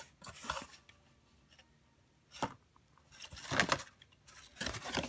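A printed card J-card being handled and turned over in the hands: a few brief rustles and scrapes of card against fingers, the loudest about two and a half and three and a half seconds in.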